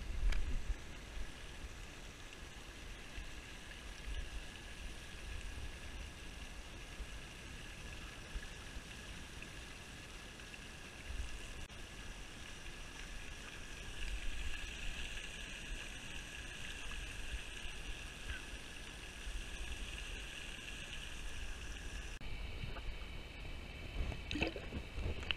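Steady splashing of a pond fountain aerator spraying water, with low wind rumble on the microphone.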